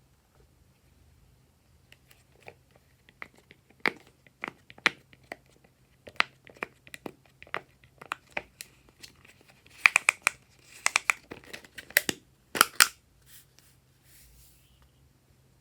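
Glossy slime being squeezed and stretched by hand, giving irregular sticky clicks and pops that come thickest and loudest about ten and twelve and a half seconds in.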